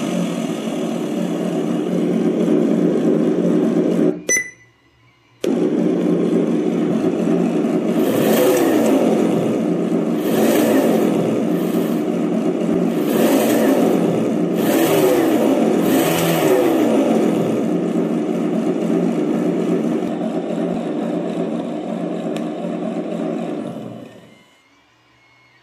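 Simulated engine sound from a GT Power RC engine sound module's small speaker: a steady idle, revved up and back down several times in the middle as the throttle is worked, then shut off near the end. It drops out for about a second early on before resuming.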